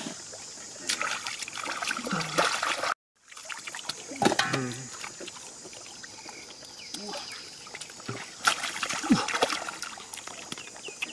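Shallow muddy water splashing and trickling as bare hands grab at catfish flopping in it.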